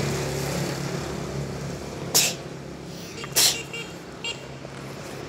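Road traffic: a passing motor vehicle's engine hum fading away, then two short, sharp hisses about a second apart and a fainter third one.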